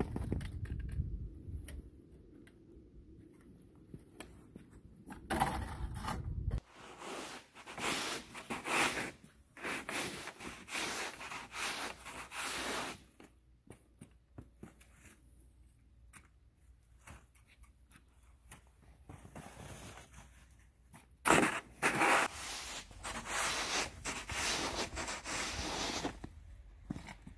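Wide snow pusher's blade scraping along an asphalt driveway as it pushes snow, in two long stretches of scraping with quieter gaps between passes.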